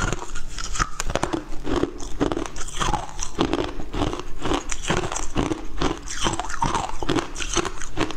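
Frozen passion fruit ice being bitten and chewed, crunching steadily at about two crunches a second, close to the mouth.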